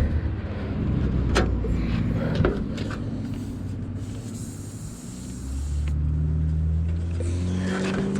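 A vehicle engine running steadily with a low hum that shifts to a different pitch about five and a half seconds in, with a couple of sharp clicks about one and a half and two and a half seconds in.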